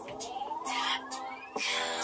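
Audio playing through the Acer Chromebook R13's built-in laptop speakers during a speaker test at about 75% volume: sustained notes, with a tone sliding steadily upward over about a second and a half and a few short clicks.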